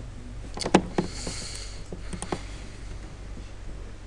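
Computer mouse and keyboard clicks: about five sharp clicks in two clusters, the loudest under a second in and another pair at about two seconds in, with a brief hiss just after the first cluster. A steady low electrical hum runs underneath.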